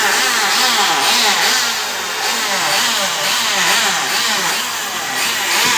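Wood planing machine running as it cuts a timber beam: a loud, steady cutting noise with a lower motor tone that wavers up and down regularly.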